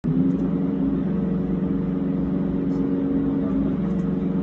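Simulated single-engine piston aircraft engine playing through a flight simulator's speakers: a steady, even drone that holds the same pitch throughout.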